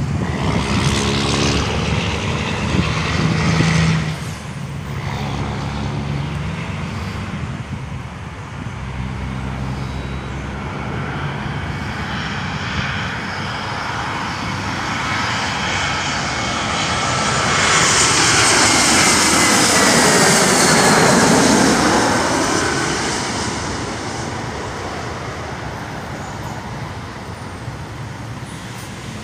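Spirit Airlines Airbus A320-200 jet passing low overhead on final approach: its engine noise builds to a peak about two-thirds of the way through, with a high whine and a rushing sound that sweeps down and back up in pitch as it goes over, then fades. In the first few seconds a nearby road vehicle's engine drones.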